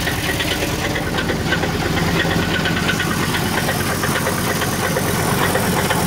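2002 Ford F-150 SuperCrew's V8 engine idling steadily with a rapid, regular knocking, the engine knock the owner is trying to show.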